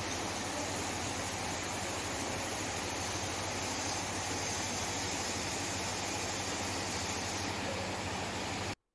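A steady rushing noise, like static or hiss, with a low hum underneath, holding at one level and cutting off suddenly near the end.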